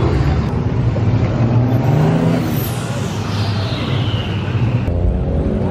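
Car engines revving loudly, their pitch climbing and dropping. A high whine slides down in pitch about two and a half seconds in.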